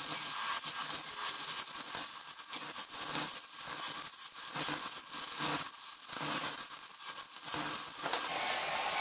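Electric arc of a handheld 140 A stick (MMA) welder, crackling and hissing unevenly as a 2.1 mm electrode cuts through 5 mm angle iron at full current.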